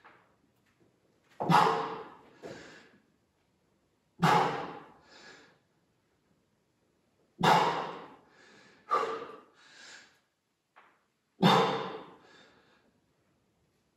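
A person breathing hard under exertion during an exercise interval: four loud, forceful exhalations about three to four seconds apart, each followed by a shorter, quieter breath.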